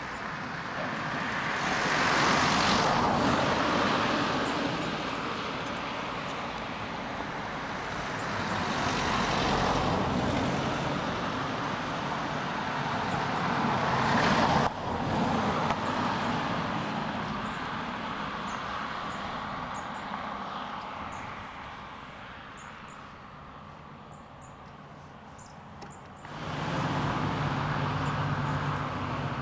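Road vehicles passing in three swells of tyre and engine noise that rise and fade, with a distant diesel locomotive beneath them. After an abrupt change about 26 seconds in, the steady low drone of an approaching Irish Rail 071 class EMD diesel locomotive is heard.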